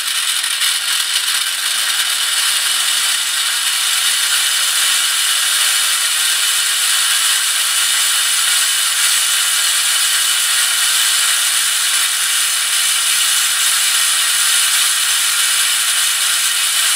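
Plastic LEGO spur gears driven by a small 4.5 V DC motor, running very noisy with a loud, steady whir of meshing teeth. The motor speeds up in the first few seconds, a low hum rising in pitch, then holds at just over 5,000 RPM.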